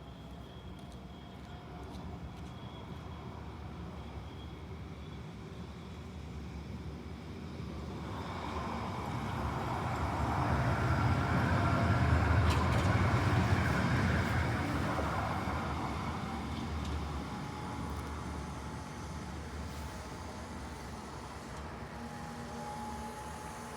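M06 tram passing by: its rumble and wheel noise grow louder, peak about halfway through, then fade as it moves away.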